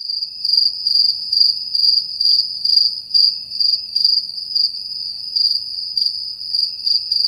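Crickets chirping, the stock comedy sound effect for an awkward silence: a steady high trill pulsing louder about twice a second, starting and cutting off abruptly.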